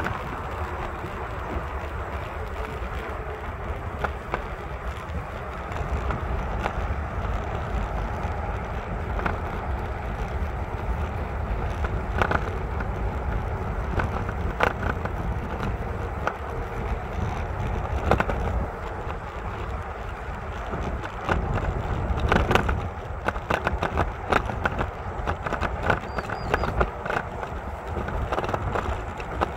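Footsteps crunching on a thin layer of snow, irregular short crunches that come thicker in the second half. A steady low rumble runs underneath.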